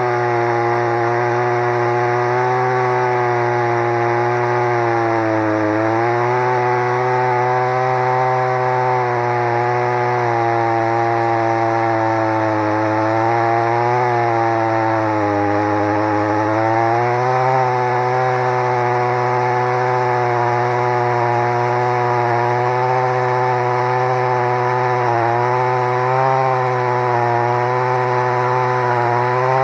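Stihl MS 180 two-stroke chainsaw running at full throttle through a large tree trunk. Its engine pitch sags and recovers several times as the chain is loaded in the cut.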